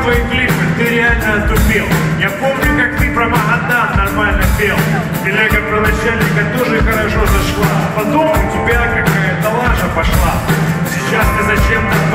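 A live rock band playing: a drum kit keeping a steady beat, with violin and electric guitar.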